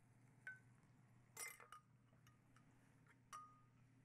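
A few faint clinks of a spoon tapping a blender jar and a glass dish while sauce is scraped out, each with a short ring, over a low steady room hum.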